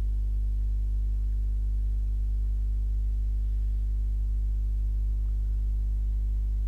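Steady low electrical hum with a stack of evenly spaced overtones, typical of mains hum picked up on a microphone line.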